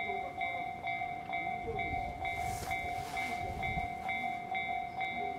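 Japanese level-crossing warning bell ringing its steady repeated electronic ding, a little over two strikes a second, the signal that a train is approaching. A low rumble swells briefly near the middle.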